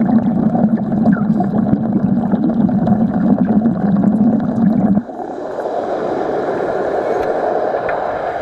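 Underwater wet arc welding: the arc gives a loud, dense crackling buzz with bubbling, which cuts off abruptly about five seconds in. A softer rushing, bubbling water sound carries on after the arc stops.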